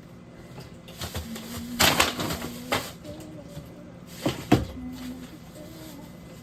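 Clattering and knocks of items being handled at a refrigerator, in two loud clusters about two seconds apart.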